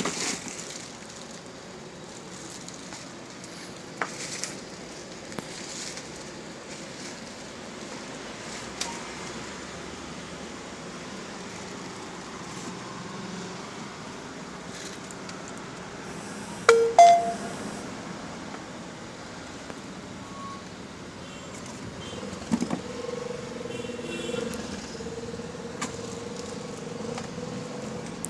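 Steady background traffic noise with a few scattered knocks and clatters from handling the packaging and parts of a boxed electric hammer drill, the loudest a sharp knock with a short ring about seventeen seconds in. A steady engine drone comes in a little over twenty seconds in and keeps going.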